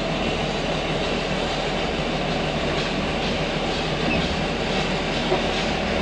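John Deere road grader's diesel engine running steadily, heard from inside the operator's cab.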